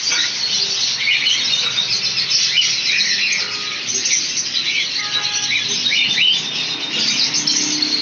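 Many caged small parrots (lovebirds, budgerigars and parakeets) chirping and squeaking together in a dense, continuous chatter.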